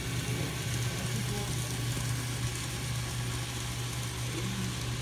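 N scale model passenger train, pulled by three E8A diesel units, running along the track: a steady low hum with an even light hiss.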